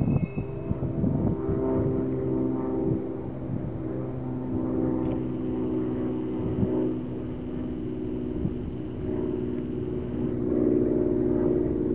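Cessna 172's piston engine and propeller running at low, steady power as the plane touches down and rolls out along the runway, with wind rumbling on the microphone. A faint high steady tone sounds from about five seconds in until about ten seconds.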